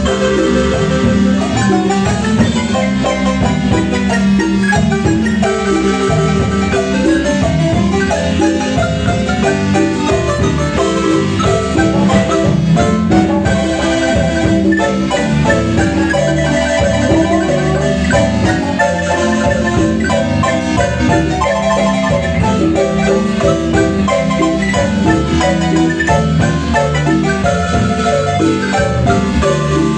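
Chiapas-style marimba music: wooden bars struck with mallets in a continuous stream of notes over a low bass line, playing without a break.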